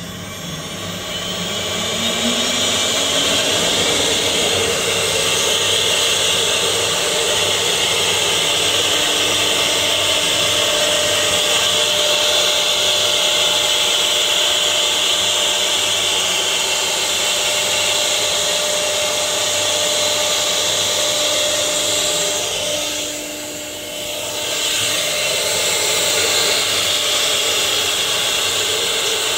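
CNC wood router spindle cutting into a wood board, a steady high-pitched whine over the cutting noise. It grows louder over the first couple of seconds and briefly drops about 23 seconds in before resuming.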